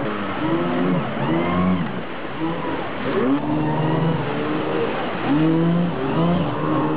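Engines of vintage Dynafoil personal hydrofoils revving up and down over and over, with the pitch rising and falling several times as the nearer craft swings in close. A rush of water spray runs underneath.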